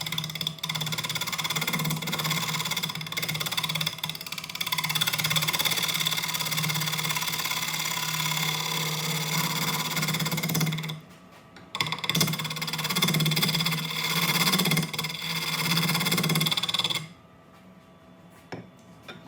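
Wood lathe running with a steady hum while a turning tool cuts the inside of a segmented walnut bowl. The sound cuts out abruptly about eleven seconds in, comes back a second later and stops abruptly near the end.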